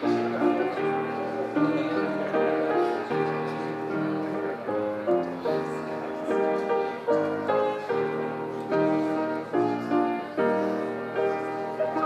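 Slow instrumental piano music playing steadily: chords and melody notes that strike sharply and fade.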